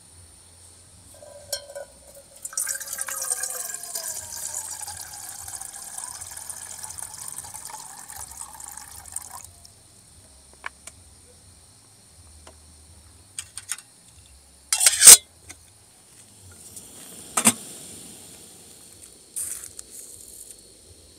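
Liquid poured into a container for about seven seconds, starting a few seconds in, with a hiss and pitch lines that glide as it flows. Then come three sharp knocks; the one about two-thirds of the way through is the loudest.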